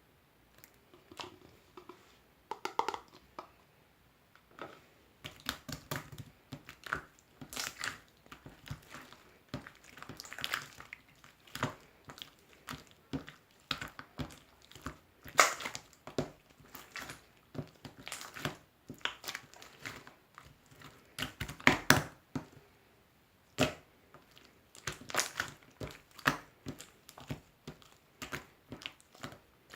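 Slime being squeezed and pressed by hand, giving irregular crackling clicks and pops in clusters.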